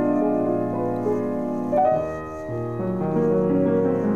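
Solo piano music: slow, sustained chords and melody notes.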